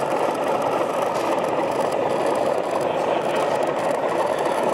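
O gauge model Class 58 diesel locomotive running along the layout with a rake of hopper wagons, giving a steady mechanical running noise.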